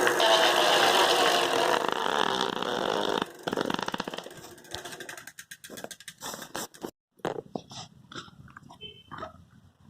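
Spinning bicycle wheel rigged to make noise against its spokes: a fast, loud clicking buzz for about three seconds, then the clicks grow sparser and fainter as the wheel slows down.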